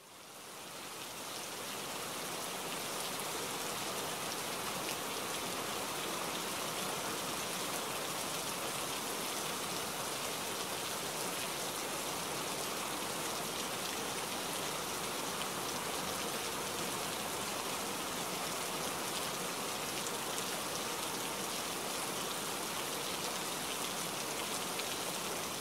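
Steady rain falling, an even hiss of many drops, fading in over the first couple of seconds and then holding steady.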